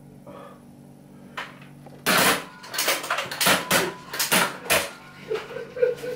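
Nerf foam-dart blasters fired at close range: a single shot, then, about two seconds in, a rapid volley of a dozen or so sharp clacks over about three seconds as several blasters fire together.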